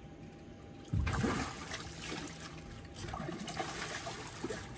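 Water splashing and trickling, starting suddenly about a second in with a heavy splash, then going on in uneven bursts until near the end.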